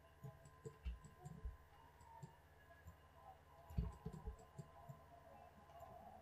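Faint, scattered clicks and soft low knocks of a computer mouse being clicked and moved on a desk, with the loudest cluster a bit under four seconds in, over a faint steady hum.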